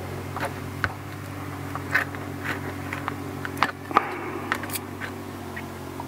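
A handful of light, irregular clicks and taps from small condiment bottles being handled and shaken over a taco, over a steady low hum.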